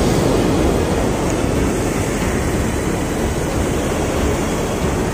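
Heavy surf breaking against rocks, a loud, steady rush of water with a deep rumble.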